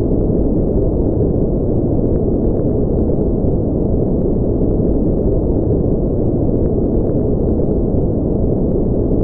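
A continuous sleep-aid noise track: steady, even noise at a constant level, deep and muffled, with most of its weight low down and little high hiss.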